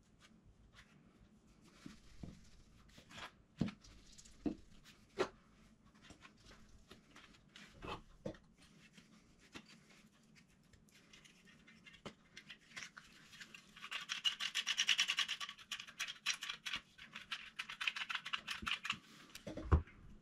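Scraping and knocking as gypsum filler is worked out of a metal bowl and packed into an empty silicone cartridge: scattered taps in the first half, then several seconds of fast, rasping scraping near the end, closed by a low thump.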